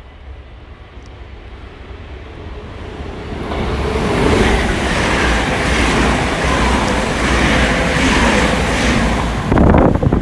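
Yellow NS double-deck passenger train passing through the station at speed. It builds as it approaches, then gives several seconds of loud rushing wheel-on-rail and air noise as the carriages go by. A sharp gust hits the microphone near the end as the train's wake goes past.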